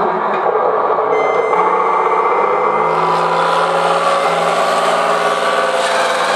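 Benedini/DBC3 sound card of a Tamiya RC SU-100 tank playing a simulated tank engine running steadily while the model drives. A thin high whine joins about a second in.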